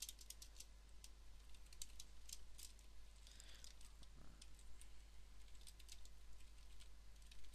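Computer keyboard keys clicking faintly in quick irregular runs as an email address is typed.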